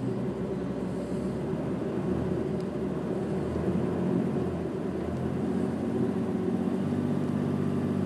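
A Jeep's engine running under load as it pulls on a tow strap tied to a small tree, heard from inside the cab; the steady engine hum grows stronger over the last couple of seconds.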